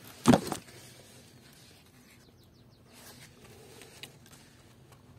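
A brief thump about a third of a second in, then a quiet background with a few faint, short high chirps a little before halfway through.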